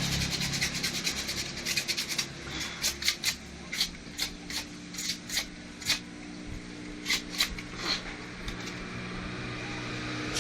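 Hand scrubbing strokes on a small part: quick, regular strokes for about two seconds, then a dozen slower, separate strokes that stop about two seconds before the end, over a steady low hum.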